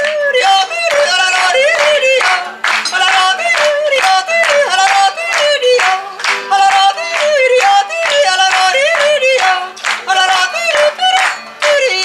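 A woman yodeling a fast "holadi-o" refrain, her voice flipping between low and high notes in short phrases repeated over and over, to a strummed nylon-string classical guitar.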